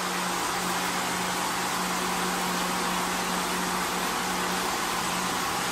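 Multi-head automatic sewing machine running, its row of sewing heads stitching a clamped fabric panel: a steady mechanical whir with a steady low hum underneath.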